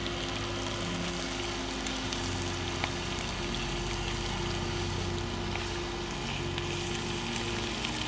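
Trout sizzling and crackling in hot butter in a small frying pan, over soft background music with held notes.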